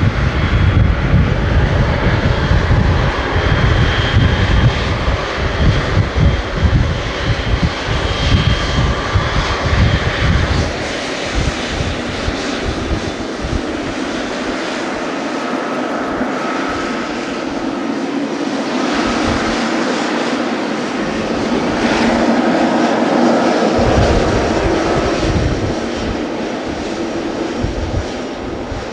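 Boeing 777-300ER's GE90-115B turbofan engines running at low thrust with a steady whine as the airliner taxis onto the runway for takeoff. A deep rumble runs through the first ten seconds or so, and the engine noise swells about two-thirds of the way in.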